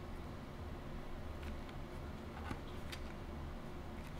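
A few faint clicks and taps of 3D-printed plastic parts being handled as the pommel is pushed into the base of the handle, over a low steady hum.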